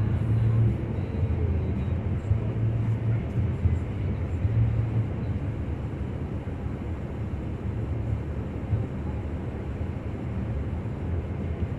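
Car driving on wet pavement, heard from inside the cabin: a steady low rumble of engine and tyres with a hiss of road noise above it.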